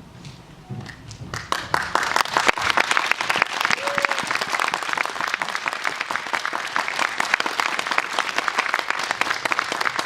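Audience applauding, a dense patter of many hands clapping that starts about a second in and carries on steadily.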